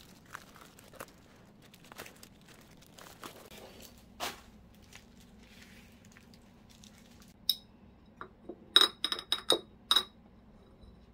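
Dispensers being unboxed by hand: light rustling and small knocks of handling. About seven and a half seconds in come a quick run of sharp, ringing clinks of hard containers knocking together, the loudest about nine seconds in.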